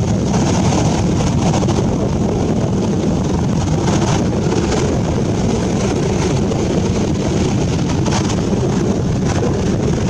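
Ocean surf breaking and washing up a sandy beach, a steady loud rush of water, with wind buffeting the microphone.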